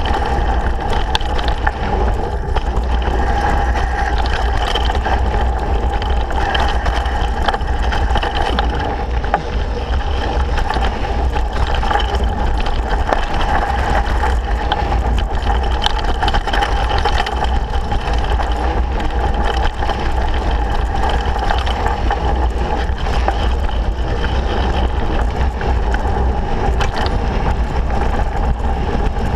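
Mountain bike riding fast down a rough dirt forest trail: steady wind buffeting on the camera's microphone, tyres rumbling over the dirt, and frequent rattles and knocks from the bike over roots and bumps.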